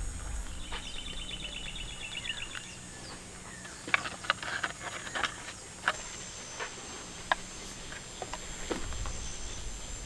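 Rural outdoor ambience: a bird gives a rapid trill of repeated high notes for about two seconds near the start, over a steady high insect drone. Scattered light clicks and taps follow in the middle.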